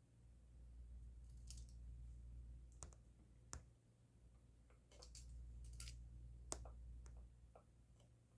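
Pen handled in the fingers, giving irregular sharp clicks and ticks, about one every second, over a faint low hum.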